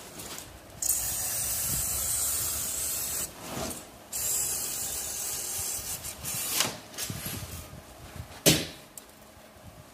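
Hand-held pre-insulated duct panel cutter pushed along a curved line through a foil-faced insulated panel, its blade scraping with a steady hiss in two long strokes. A few sharp knocks follow, the loudest about eight and a half seconds in.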